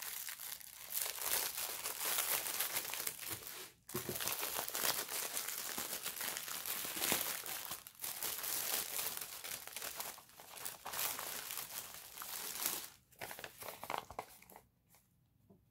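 Clear plastic packaging crinkling and rustling as it is wrestled off a rolled diamond-painting canvas, in near-continuous handling with a few short pauses. It stops shortly before the end.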